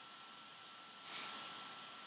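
A brief rustle about a second in, fading quickly, over a steady background hiss and a faint steady high tone.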